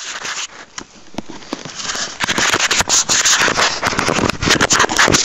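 Handling noise: the camera's microphone rubbing and scraping against something as it is carried and moved, a scratchy crackle full of small clicks that grows louder about two seconds in.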